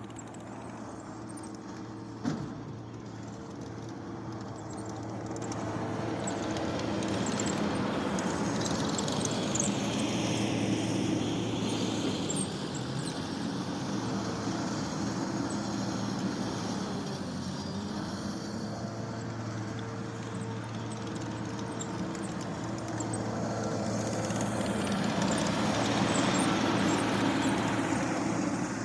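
Skid steer's diesel engine running steadily under work, growing louder twice as the machine works near by, with a single click a couple of seconds in.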